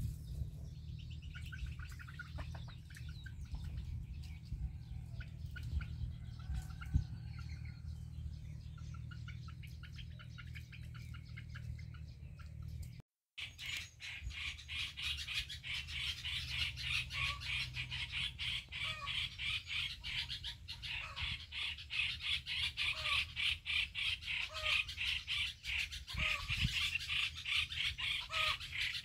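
Chickens and other birds giving alarm calls at a snake: scattered chirps at first, then, after a cut about halfway, a loud, fast, high chatter with a lower call repeating about once a second.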